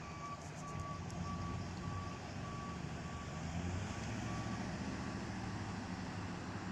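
Backup alarm of a hi-rail service truck beeping evenly at one pitch as the truck reverses along the rails, fading out about halfway through. Underneath, the steady engine drone of road vehicles passing close by grows stronger in the second half.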